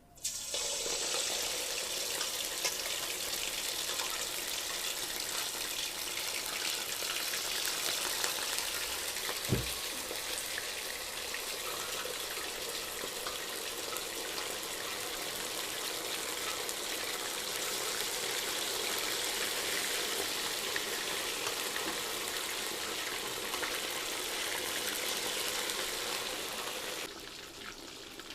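Spice-marinated chicken pieces frying in hot oil: a loud, steady sizzle that starts suddenly as the chicken goes in and drops to a lower level near the end. One brief knock about ten seconds in.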